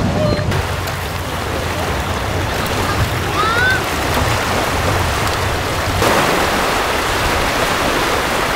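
Small waves washing onto a stony tidal beach, a steady rush of surf.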